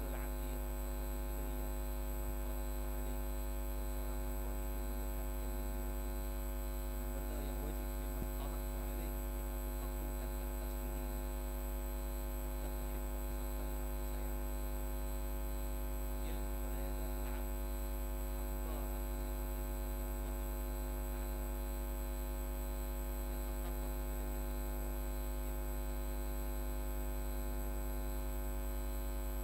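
Steady electrical hum from the audio system: a low drone with a stack of steady tones above it, unchanging throughout. Only a few faint traces of a voice come through in the first part, and the lecturer's speech is otherwise lost under the hum.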